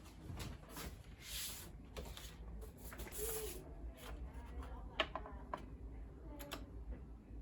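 Faint handling noises: a few soft rustles and scattered sharp clicks over a low hum in a small room.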